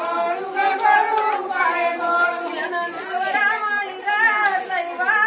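Women's voices singing unaccompanied, long drawn-out lines of a traditional Marathi ovi, the grinding-stone song sung for weddings.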